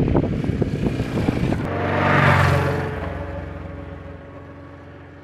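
Honda XRV750 Africa Twin's V-twin engine pulling away, loudest about two seconds in, then fading steadily as the motorcycle rides off. Before that, wind buffeting the microphone.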